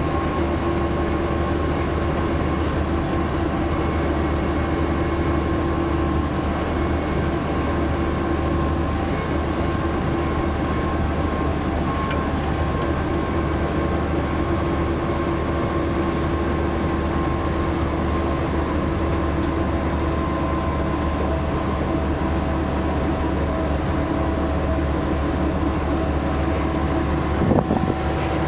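Tour bus driving, heard inside the cabin: a steady engine and road drone with a constant hum, and a brief knock near the end.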